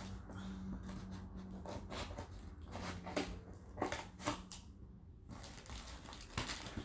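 A blade cutting and scraping through packing tape on a cardboard box: a run of scratchy strokes and clicks, with a few sharper cuts about three to four seconds in.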